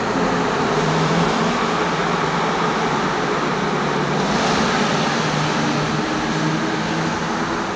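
Steady car engine and road noise heard from inside a following car: a low engine hum under a broad rushing hiss, a little brighter about four seconds in.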